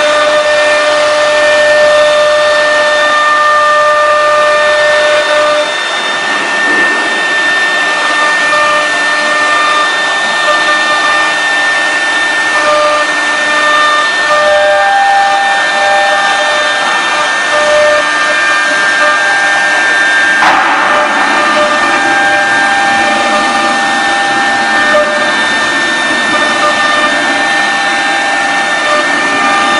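Air-cooled spindle of a CNC router running with a steady high whine while engraving MDF, over a constant hiss. Shorter tones start, stop and change pitch throughout as the stepper motors drive the axes.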